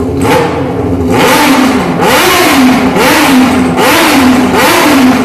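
CB 800 motorcycle engine being revved over and over, the throttle blipped about once a second so the loud exhaust note rises and falls in a steady rhythm.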